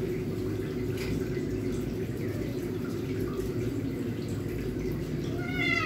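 Tap water pouring in a steady stream from a faucet into a sink basin. Near the end a drawn-out pitched call starts over the running water.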